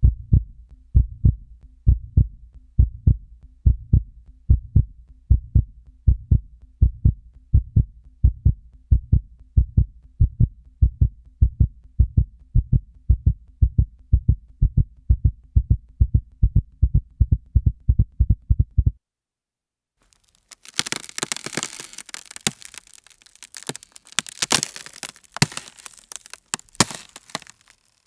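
Heartbeat: low, evenly spaced thumps that stop suddenly about two-thirds of the way through. After a second's pause, a dense crackling hiss with sharp clicks follows.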